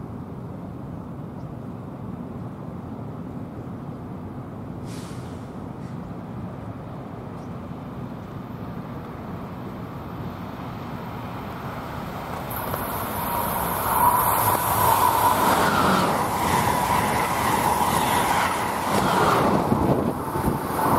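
Steady low rumble, then a passenger train on the Northeast Corridor comes in about twelve seconds in and passes close by, its wheels on the rails growing loud, with a thin steady whine as it comes alongside.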